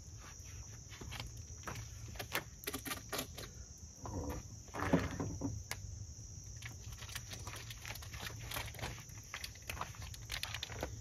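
Wood fire crackling in a small portable charcoal grill as it burns down to coals, with scattered sharp pops, shuffling footsteps on the ground and a steady high insect drone; a brief louder sound comes about five seconds in.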